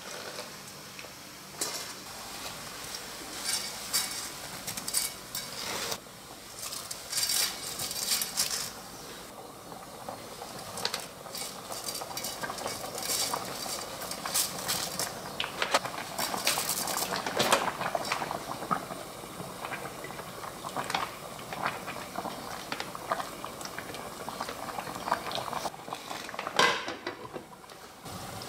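Water boiling in a cooking pot as a bundle of thin wheat noodles is pushed down and stirred in, with scattered clinks of utensils and pot. One sharp, loud clink comes near the end as the glass pot lid goes on.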